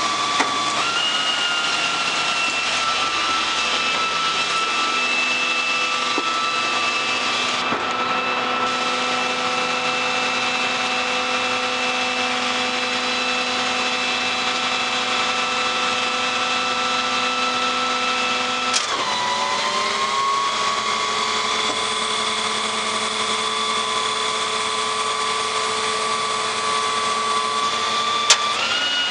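Garbage truck's hydraulic system whining steadily over the diesel engine running at raised speed while the packer panel is worked by its control lever. The pitch shifts several times as the hydraulic load changes, with a sharp dip and recovery about two-thirds of the way through, and a few sharp clicks.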